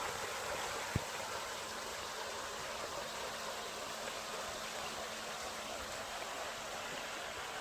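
Water from an artificial waterfall pouring steadily into an ornamental pond, an even rush of falling water. A brief low thump about a second in.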